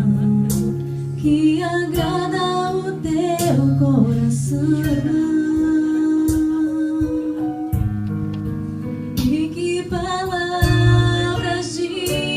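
Acoustic guitar strummed steadily under a woman's voice singing a melody in two phrases, a worship song.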